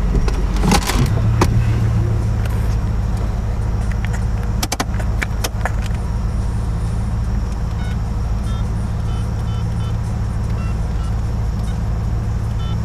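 Car engine running steadily at idle, a constant low hum heard from inside the car. A few clicks and rattles in the first seconds.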